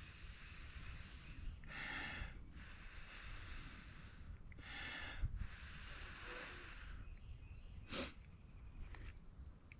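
A person blowing steadily into a smouldering tinder nest to coax a bow drill ember into flame: a series of long blows, each a second or two, with quick breaths drawn in between. There is a single sharp click about eight seconds in.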